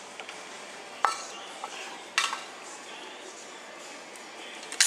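Three sharp clinks of hard objects knocking together close to the microphone, about a second in, a little after two seconds and loudest near the end, over steady room noise.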